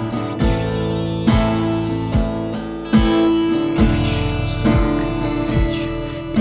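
Instrumental passage of a band song: guitar chords strummed over a steady beat, with a strong hit a little under once a second.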